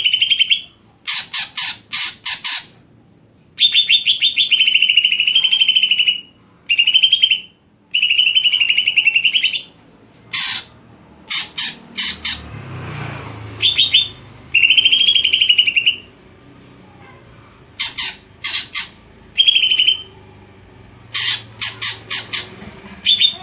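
A cucak ijo (greater green leafbird) singing loudly: repeated high, trilling song phrases of a second or two with short pauses between them, mixed with quick runs of sharp clipped notes. A soft low rustle comes in about halfway through.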